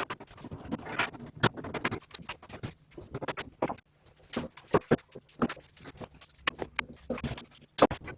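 Irregular light taps and clicks of wood and tools being handled at the workbench, with uneven gaps between them and one sharper, louder knock near the end.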